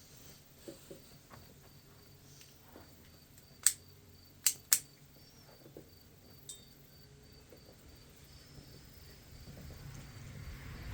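Faint, steady chirping of a cricket, with a few light knocks and three sharp clicks in quick succession about four to five seconds in.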